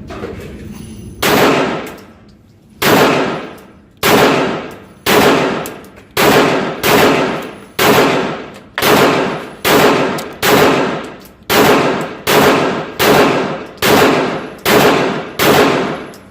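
About sixteen gunshots from a 9mm firearm fed from a Glock 17 magazine. They are fired in steady succession roughly a second apart, slightly quicker near the end, and each shot has a short echo that fades out.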